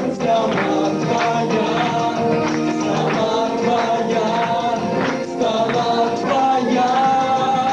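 Music: a song with a singing voice holding long notes over a steady rhythmic beat.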